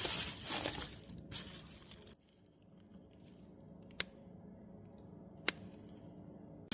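Plastic grocery bag rustling and crinkling as items are taken out, for about the first second and a half, followed by two sharp clicks a second and a half apart.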